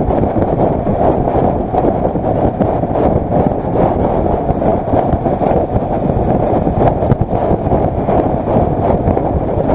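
Kawasaki Versys motorcycle cruising steadily at about 75 km/h: wind rushing over the bike-mounted camera microphone, mixed with engine and road noise.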